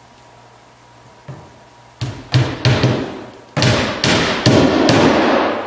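Claw hammer driving 1¼-inch roofing nails through the pre-punched holes of a polypropylene roof vent's flange into the deck: about eight sharp blows, starting about two seconds in, after one light tap.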